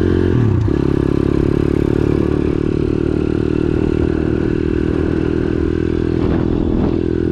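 Piranha YX140 single-cylinder four-stroke pit bike engine pulling hard under acceleration on a top-speed run. The revs dip briefly about half a second in, then hold steady.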